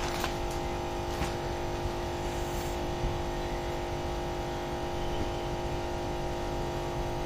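A steady machine or electrical hum with several held tones over a low rumble, broken by a few faint clicks.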